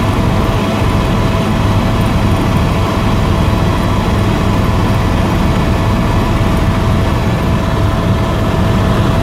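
Tour helicopter in level flight heard from inside the cabin: a loud, steady drone of rotor and engine with a constant whine over it.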